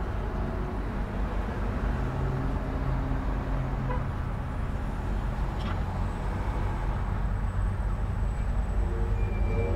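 Busy road-intersection traffic: a continuous rumble of vehicle engines and tyres. A low engine drone stands out for a couple of seconds after the start, and a faint high whine sounds through the second half.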